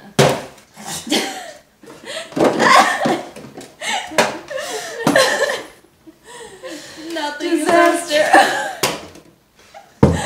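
Two women laughing and talking unclearly. There is a sharp knock right at the start, as a steel mixing bowl is tipped onto a metal baking tray, and another knock near the end.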